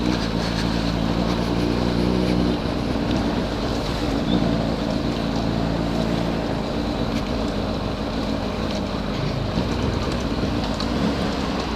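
Motorcycle engine running while riding, holding a steady pitch for the first couple of seconds and then blending into rushing wind noise on the microphone.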